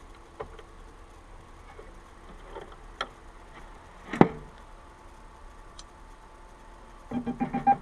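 Scattered light clicks of small metal parts being handled, with one sharper knock about four seconds in. There is no key-cutting machine running.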